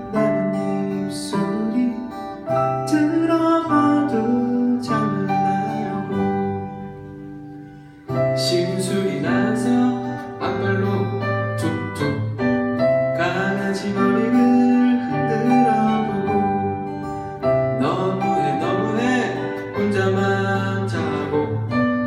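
Two acoustic guitars strummed and picked while a man sings a song into a microphone. The music dies away for a moment about seven seconds in, then starts again in full.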